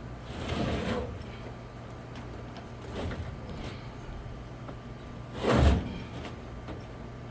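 A heavy metal tool box being pushed out of a van. It scrapes and slides near the start, then comes down with a loud heavy thump about five and a half seconds in, over a steady low hum.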